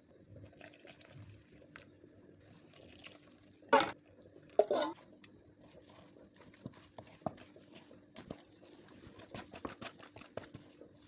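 Kitchen food-preparation sounds: two brief pours or splashes of liquid a little under four and five seconds in, then scattered light clicks and taps, over a faint steady hum.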